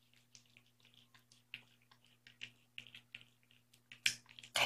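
Adult cat eating wet food from a bowl: scattered soft, wet chewing smacks and clicks, with a couple of louder ones near the end.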